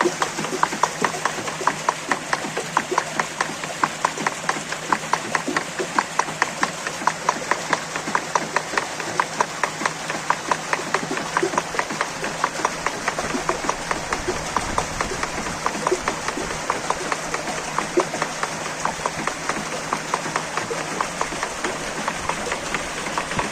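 A mill's mechanism clattering in an even rhythm of sharp wooden knocks, about two to three a second, over a steady hiss.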